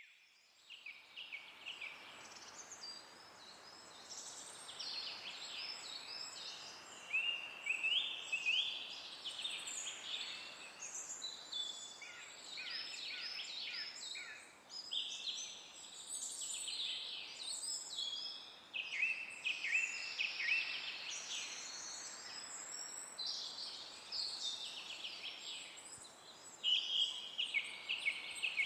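Several songbirds singing and calling at once, short chirps and trills overlapping, over a faint steady hiss of forest ambience.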